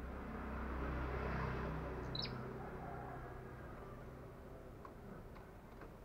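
A motor vehicle passing, its low engine hum swelling and then fading over a few seconds. About two seconds in, a caged tailorbird gives one short, sharp, high chirp, and a few faint ticks follow near the end.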